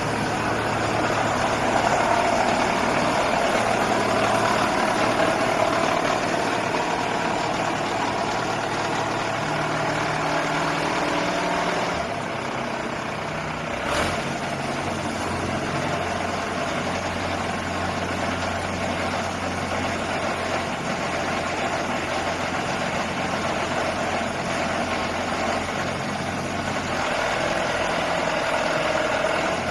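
Water well drilling rig's engine running steadily, its note shifting about twelve seconds in, with one sharp knock about fourteen seconds in.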